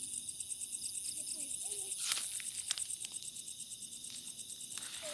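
Crickets and other night insects trilling steadily in a high, finely pulsing chorus, with a few sharp clicks about two and three seconds in.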